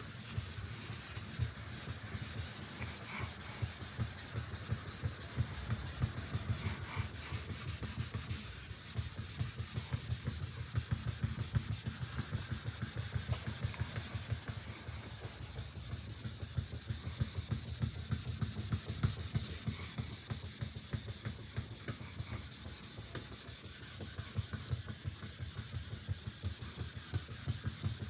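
Wet sanding by hand: 1500-grit sandpaper on a hand sanding block rubbed back and forth over single-stage car paint, in a steady run of quick strokes. It is the blocking stage that flattens runs and sags in the paint before buffing.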